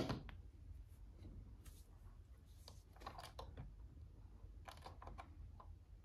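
Faint scattered clicks and taps of hands handling a plastic Fisher-Price toy robot on a wooden tabletop.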